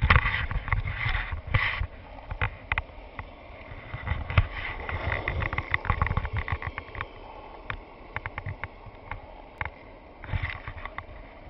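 Skateboard wheels rolling on an asphalt path: a steady low rumble with many scattered sharp clicks. There are louder stretches of noise in the first two seconds and again about ten seconds in.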